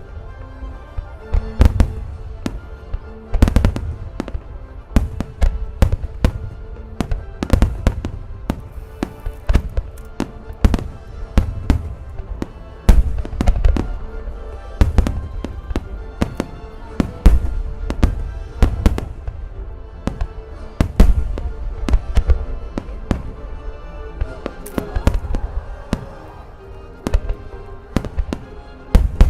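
Large fireworks display: aerial shells bursting in rapid succession, a dense string of sharp bangs and deep booms, over music playing with steady held notes.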